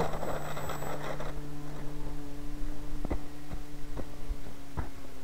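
A steady low hum made of a few evenly spaced pitches, sinking slightly, with three sharp clicks in the second half.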